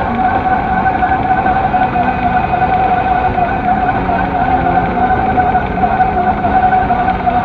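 Honda Shadow motorcycle's V-twin engine running steadily while the bike rides along at an even speed, with wind and road noise over it.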